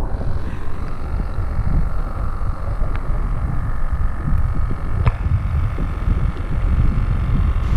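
Wind buffeting the camera microphone: a steady, loud low rumble that rises and falls unevenly, with a couple of faint clicks about three and five seconds in.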